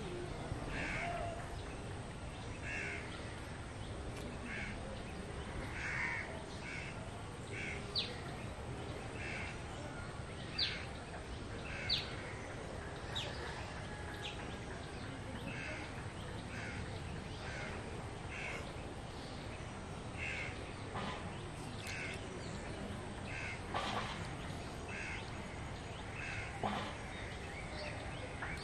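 Crows cawing repeatedly at irregular intervals over a steady outdoor background hiss, with a few short, sharp high sounds about a third of the way in.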